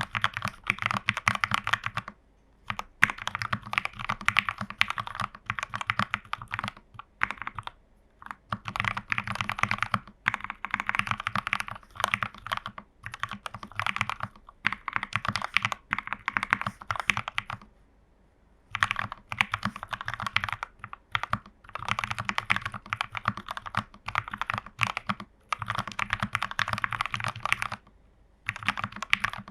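Typing on a plateless plastic mechanical keyboard with lubed Gateron Pro Milky Yellow linear switches and XMI Cyrillic keycaps: fast runs of keystrokes with a deep thock, broken by short pauses.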